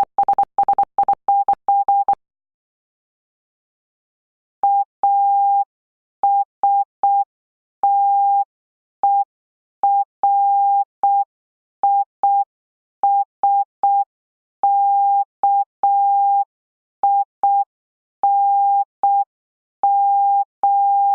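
Morse code sent as a single steady tone of about 800 Hz, keyed on and off in dots and dashes. A quick run of code fills the first two seconds; after a pause of about two seconds comes a slower run with long dashes and wide gaps.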